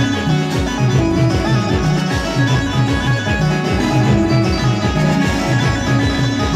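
Instrumental band music: a plucked-string melody over a steady, driving bass beat.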